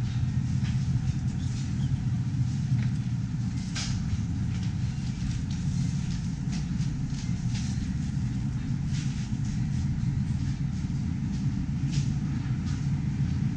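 Steady low rumble of grocery store background noise, with faint clicks and knocks scattered through it.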